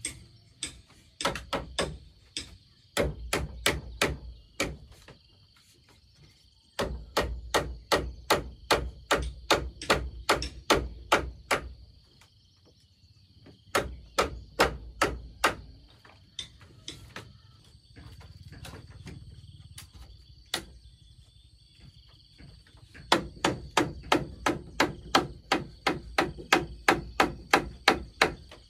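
Repeated sharp blows of a hand tool, in runs of about three strikes a second with short pauses between, and a single strike near the middle. A steady high insect trill runs underneath.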